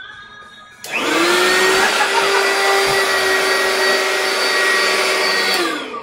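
Vacuum cleaner switched on about a second in, its motor whine rising quickly to a steady run, then switched off near the end and winding down.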